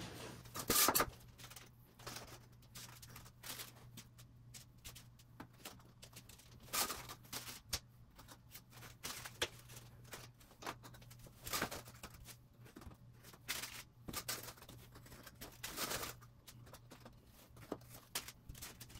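Scattered light clicks and taps of hands handling HO-scale model track and pressing in small track pins, with the crinkle of the plastic pin packet, over a faint steady low hum.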